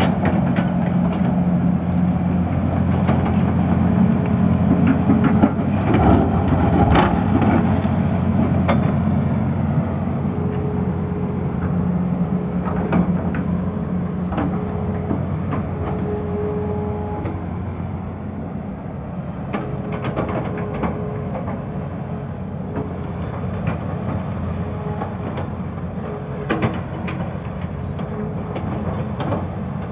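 Tata Hitachi excavator's diesel engine running steadily, with scattered knocks and clanks throughout.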